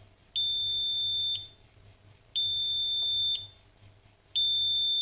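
Electronic alarm beeping: three one-second, high-pitched steady tones, about two seconds apart.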